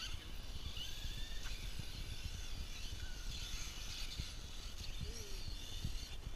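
Faint whine of distant radio-controlled buggy motors, rising in pitch about a second in and again near the middle, over a steady low rumble of wind on the microphone.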